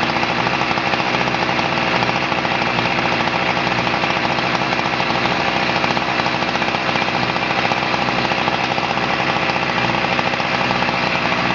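Husqvarna 346 XP's 45 cc two-stroke chainsaw engine running at a steady speed, with a rapid, even pulsing.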